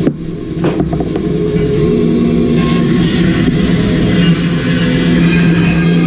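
Bandsaw running with a steady motor hum while its blade cuts through a log section with the bark on; the rougher cutting noise builds about two seconds in.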